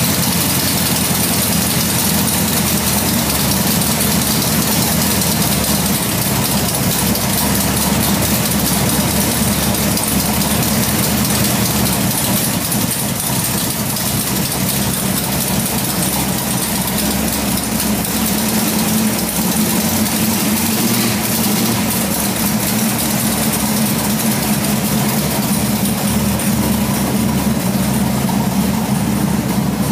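410 cubic-inch stroker Ford Cleveland V8 idling steadily with exhaust leaks at the front of cylinder 1 and the back of cylinder 8, where the header ports overhang an ill-fitting gasket. Near the end the car moves off.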